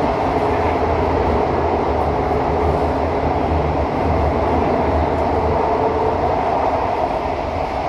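Cabin noise inside a CT251 metro train on the move: a steady rumble of wheels on rail and running gear, with a constant hiss-like noise and no sudden events.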